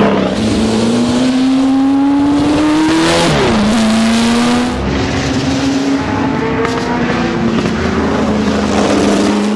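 Serenissima MK168's 3-litre V8 racing engine pulling hard under full throttle. Its pitch climbs steadily, drops sharply at an upshift about three seconds in, then climbs again and holds a fairly steady high note.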